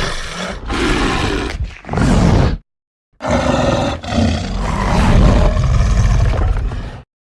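Two made-up dragon roar sound effects. The first lasts about two and a half seconds. After a short silence, a longer, deep roar runs about four seconds. Each cuts off abruptly.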